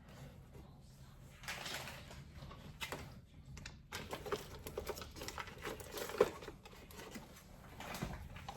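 Light clicks, taps and knocks of bottles and containers being handled and set onto refrigerator shelves, with one sharper knock about six seconds in.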